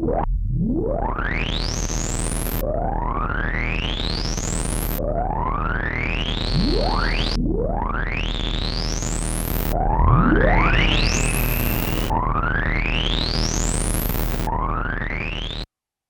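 Analog-synthesizer warp sound effect: seven rising pitch sweeps, each climbing from low to very high over about two seconds before snapping back down to start again, over a steady low rumble. It cuts off abruptly near the end.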